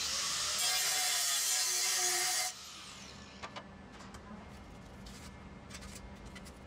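Angle grinder grinding a steel part for about two and a half seconds, then switched off and cutting out abruptly with a short falling whine as it spins down. Light handling knocks follow.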